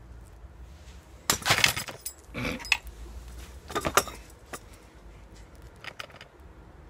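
A camp stool breaking under its sitter: a series of loud cracks and rattles, the loudest about a second and a half in, more near two and a half and four seconds in, then a few lighter clicks.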